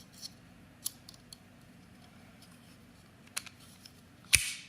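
JerryRigEverything folding utility knife being handled during a blade change: a few light clicks, then one sharp snap about four seconds in as the knife clicks shut.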